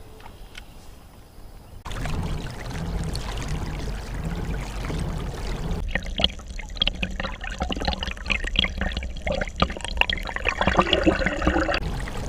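Water splashing and trickling close to the microphone beside a kayak, over a low wind rumble. The rumble starts suddenly about two seconds in, and the splashing and dripping join it from about halfway through, stopping shortly before the end.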